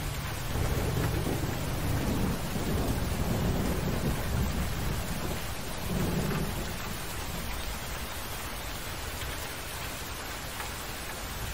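Steady rain with low rumbles of thunder, swelling in the first few seconds and again about six seconds in.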